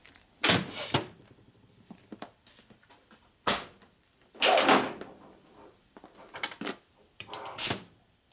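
Metal clunks and scrapes as a pneumatic valve spring compressor is set down on a steel workbench and its air hose is handled. There are a few separate knocks, with a sharp one about three and a half seconds in.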